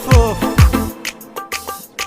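Background music: a song with a heavy beat and pitched kick drums, thinning in the second half to sparse drum hits and short synth stabs.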